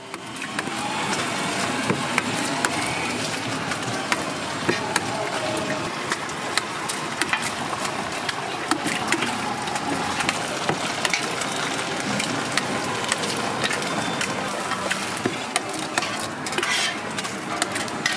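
Eggs being cracked one after another against the rim of a plastic tub and emptied into it: irregular sharp taps and cracks over a steady hiss.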